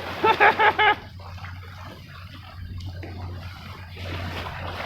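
A dog barks four times in quick succession, then water laps and splashes faintly.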